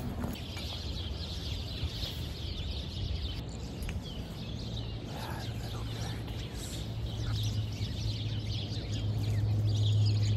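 A flock of small birds chirping busily, many quick overlapping chirps, over a low steady hum that grows louder in the second half.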